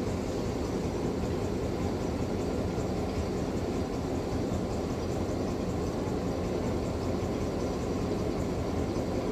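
Steady low rumble and hiss of a train heard from an open carriage window, even throughout with no distinct knocks or horn.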